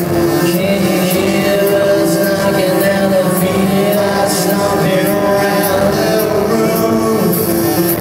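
Rock band playing live in a concert hall, electric guitars and drums with cymbal hits about twice a second, recorded from within the crowd.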